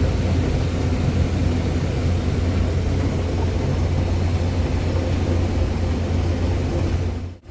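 Combine harvester running steadily while picking corn: a constant low engine hum with a machinery rumble over it.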